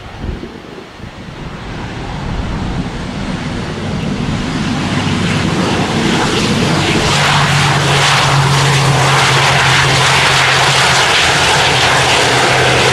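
ATR 72-500 turboprop taxiing close by, its two Pratt & Whitney PW127 engines and propellers growing steadily louder as it approaches. From about seven seconds in a steady low propeller hum sits under the engine noise.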